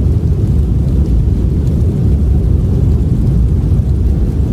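Strong blizzard wind, a loud, steady, deep rumble with little high hiss.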